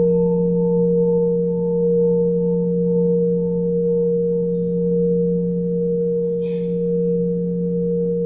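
Steady sustained healing-frequency tones, played for pain relief: a low hum with a clearer tone above it and a faint higher tone pulsing about twice a second. None of them is struck or fades.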